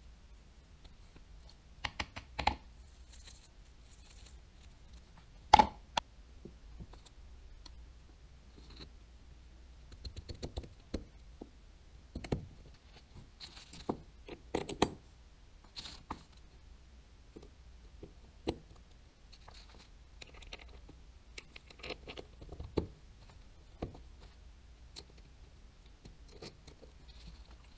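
Small parts and tools of a Daiwa Tatula 100 TWS baitcasting reel being handled during reassembly: irregular clicks, taps and light scrapes, with the loudest knock about five and a half seconds in.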